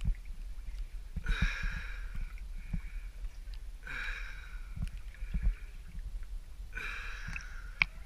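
A swimmer's loud breathing, three breaths a few seconds apart, over water sloshing and knocking close to the microphone, with a few sharp clicks near the end.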